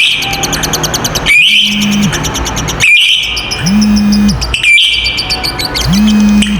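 Lovebirds giving their long, rapid chattering trill ('ngekek panjang'), loud and high, in repeating phrases about every one and a half seconds with short breaks between. A low hum rises and falls under each phrase.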